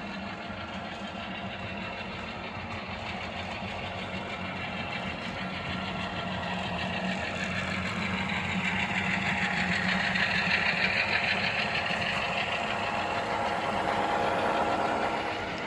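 Model train locomotives running around the track loops: a steady electric-motor hum with wheels rolling on the rails. It grows louder as a train nears, loudest about two-thirds of the way in, swells again near the end, then eases off.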